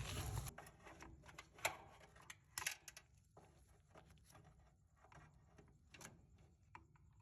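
Faint, scattered clicks and light scrapes of metal being handled, the loudest about a second and a half in and again a second later: a dropped tool being fished out of a dryer's blower wheel housing.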